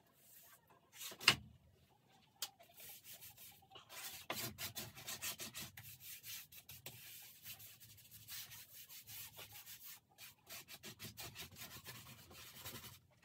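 Quick back-and-forth rubbing strokes of a hand-held pad on a stretched painting canvas, a dry scrubbing hiss that starts about four seconds in and goes on with short pauses. A single sharp knock about a second in is the loudest sound.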